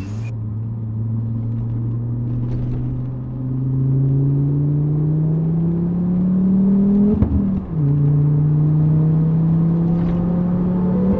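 Volvo V70R's 2.5-litre turbocharged five-cylinder engine pulling under load, its pitch rising steadily for about seven seconds. It drops with a gear change on the six-speed manual, then climbs again until a second shift near the end.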